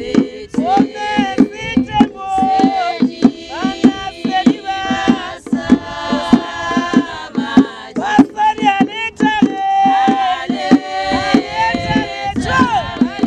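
A group of women singing together in a call-and-chorus style, over a drum beating a steady rhythm of about three strikes a second.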